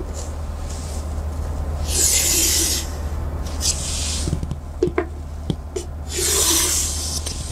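Chalk scraping along a wooden set square on a chalkboard, ruling two lines, each a scratchy stroke under a second long, with a few light knocks in between as the set square is shifted against the board.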